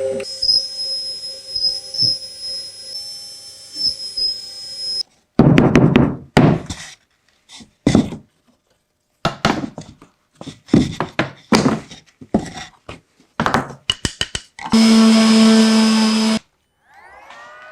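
A woodworking machine running with a steady high whine. It gives way to a choppy run of short knocks and bursts of noise with dead gaps between them, then a steady machine hum with several pitches for about two seconds near the end.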